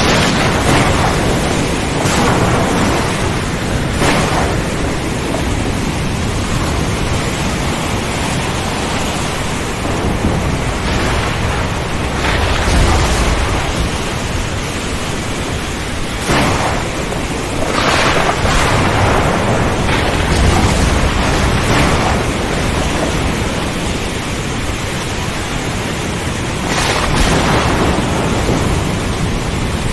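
Heavy rain, a steady loud hiss with scattered sharp close splashes, and deep rumbles swelling around twelve and twenty seconds in.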